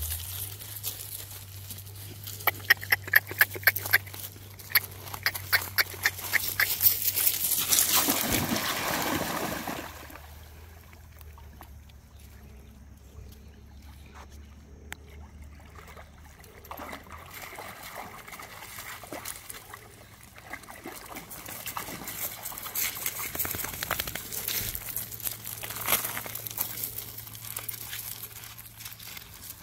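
Dogs wading and splashing in a shallow creek. A run of quick sharp strokes, about three a second, gives way to a louder stretch of splashing, then softer sloshing as they swim and come back out.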